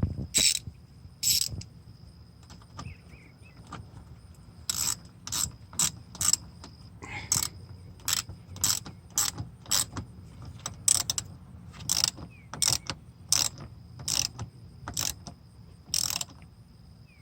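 Ratchet wrench with an 8mm socket clicking on its back-swings while tightening a battery ground terminal nut. Two clicks come first, then after a pause of about three seconds a run of clicks at about two a second.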